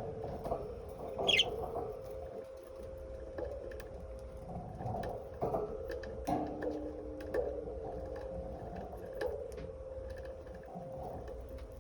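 Pet lovebirds making soft calls and clicks, with one sharp high chirp about a second in, over a steady hum.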